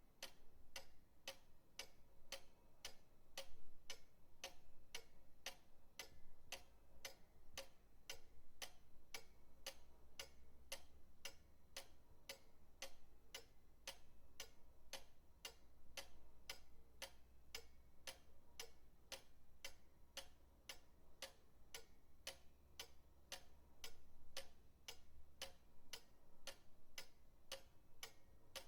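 Pendulum clock ticking with a steady, even beat, faint.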